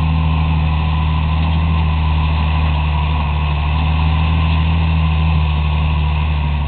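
An engine running steadily, a low, even hum that holds constant pitch and level throughout.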